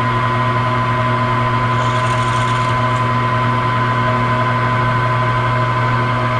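Milling machine spindle motor running steadily at speed with a drill in its chuck, giving a steady hum, while a 5/32-inch hole is drilled by hand feed in a steel bearing retainer.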